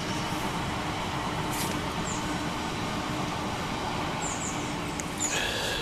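Steady rumbling noise of a passing train.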